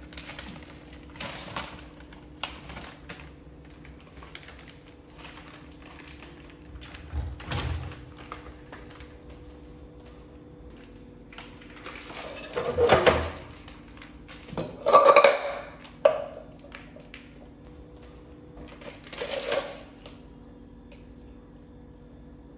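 A stainless steel cooking pot and other kitchenware clattering in a kitchen cabinet and on a tiled floor as a small monkey handles them: scattered knocks and scrapes, the loudest a little past halfway.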